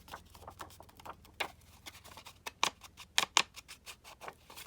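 An ink pad dabbed and rubbed along the edges of scrapbook paper to distress it with walnut stain ink. Irregular light taps and paper scuffs, with a few sharper clicks near the middle.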